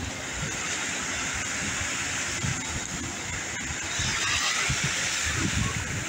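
Ocean surf washing in around a pier's wooden pilings: a steady rush of breaking and sloshing water that swells a little about two-thirds of the way in.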